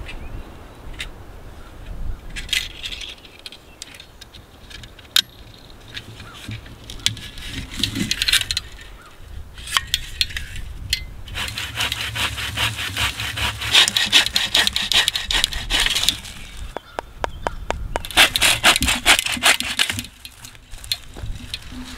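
A folding hand saw cutting a dead branch for firewood, with quick rasping back-and-forth strokes in two long runs from about halfway through. Before them come scattered cracks and rustling from dry sticks being handled.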